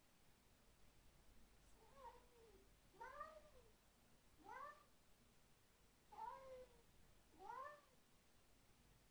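A cat yowling over and over: five drawn-out meows, each rising and then falling in pitch, spaced roughly a second or so apart.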